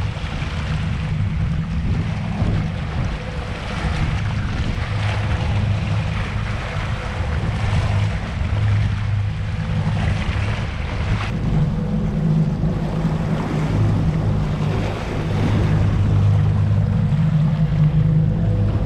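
Suzuki four-stroke outboard motor running under way: a steady low drone, with water rushing past the hull and wind buffeting the microphone.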